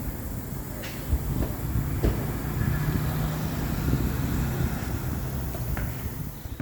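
Car running with a steady low rumble, with a few sharp knocks about one and two seconds in.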